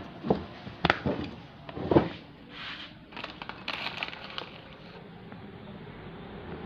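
Light knocks and clicks of kitchen items handled around a clay mortar, with a short rustling hiss about two and a half seconds in, then faint steady background noise.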